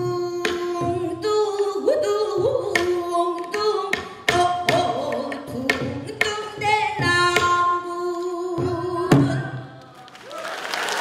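Pansori singing: a woman's strong, bending sung voice with sharp strokes on a buk barrel drum keeping time. The song ends about nine seconds in, and applause begins to swell near the end.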